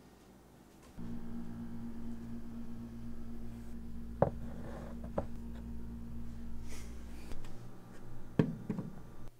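A steady low hum starts about a second in, with a few sharp knocks of cups being set down: a mug on a wooden bedside table about four seconds in, and a plastic sippy cup knocking in a stainless steel sink near the end.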